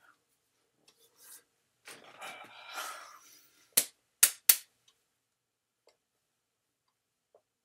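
A soft rustling, breathy noise, then three sharp claps in quick succession a little under four seconds in: hands striking together while signing in sign language.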